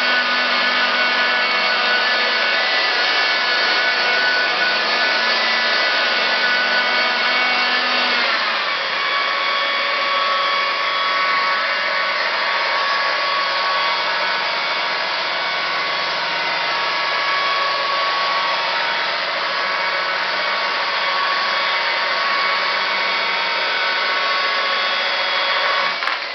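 Small rotary polisher spinning a 3M foam cutting pad with cutting polish on car paint, a steady high whine. About eight seconds in its pitch glides down, and it runs on steadily at the lower speed before winding down at the very end.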